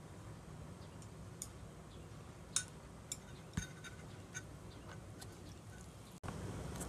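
Eating utensils clinking lightly against a bowl, a few scattered sharp clicks, some with a short ring, over faint room hush.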